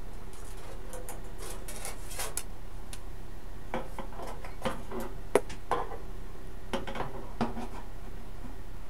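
Light metallic clinks, taps and short scrapes of sheet metal and hand tools being handled on a workbench, in two clusters with a sharper tap about five seconds in, over a steady low hum.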